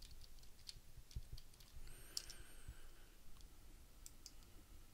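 Faint, scattered clicks of a computer keyboard and mouse as a name is typed and settings are clicked.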